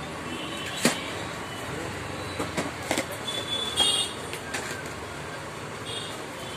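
Steady background noise of a shop with street traffic outside, broken by several sharp clicks and knocks, the loudest about a second in and again near four seconds.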